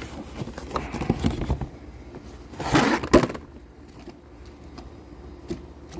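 Handling noises of pleated paper engine air filters: scattered light knocks and clicks, with a louder rustling scrape about three seconds in.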